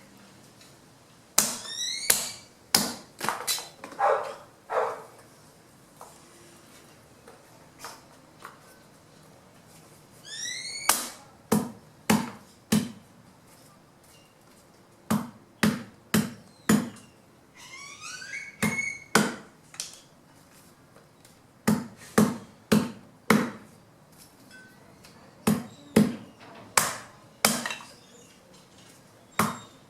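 Fallen branches being chopped into wood chips by hand: sharp chopping strikes come in quick clusters of two to four, with short pauses between the clusters.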